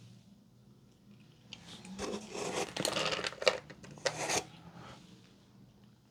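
Rustling and crinkling of a cat-treat packet being handled, in a few short bursts with small clicks starting about one and a half seconds in.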